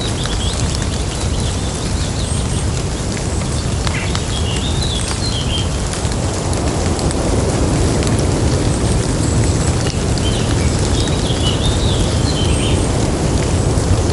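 Rainwater dripping and pattering steadily on wet leaves, with scattered sharper drops, over a constant low rumble of distant thunder that swells slightly about halfway through. A bird chirps briefly twice, about a third of the way in and again near the end.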